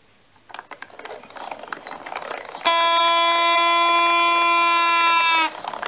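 Sloth automaton's mechanism clicking and ratcheting as it turns. About halfway through, a loud steady held note sounds for nearly three seconds, sagging slightly in pitch just before it stops abruptly, after which the clicking goes on.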